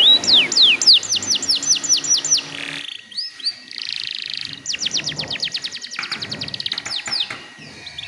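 Domestic canary singing fast runs of repeated sweeping whistled notes and rolling trills, with short breaks between phrases.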